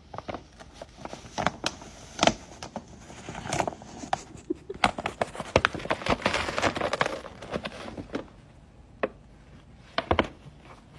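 Brown paper bag crackling and rustling as a cat shifts inside it and pushes at a torn hole in its side. The crackles come thickest through the middle, then thin out to a few single crackles near the end.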